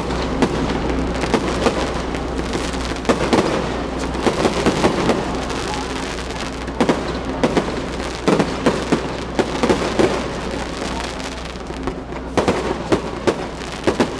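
Aerial fireworks bursting overhead: a string of sharp pops and crackles that comes in clusters, with the busiest runs about three seconds in, around eight seconds in, and near the end.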